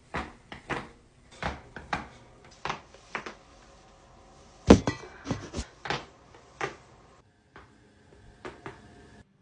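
Joints cracking during a chiropractic neck adjustment: a run of sharp pops and knocks, irregularly spaced, the loudest a little under five seconds in, with fainter ones near the end.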